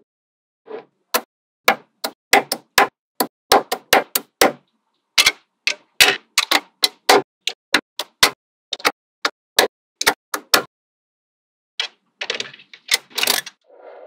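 Small magnetic balls snapping together: a run of sharp, irregular clicks, a few a second, with a short pause about ten and a half seconds in, then a brief clattering rattle near the end.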